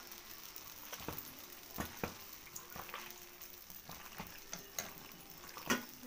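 A hand squelching and slapping as it rubs chili powder, turmeric and a ground spice paste with oil into raw mutton pieces, a faint wet mixing noise broken by scattered soft clicks and slaps.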